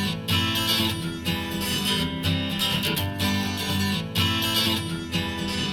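Instrumental intro of an acoustic pop song: acoustic guitar strumming over a steady beat, played back through an in-ear monitor for a sound comparison.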